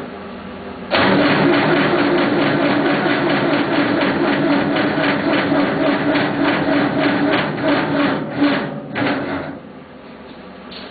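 Massey Ferguson 50D backhoe's diesel engine being cranked over by the starter in a cold start attempt, a steady rhythmic chug of about four pulses a second. It starts about a second in, stops near the end, and the engine does not catch.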